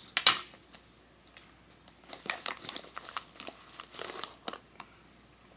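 Packaging being torn open and handled by hand: irregular crinkling and tearing, with the loudest rip a fraction of a second in and scattered crinkles through the middle.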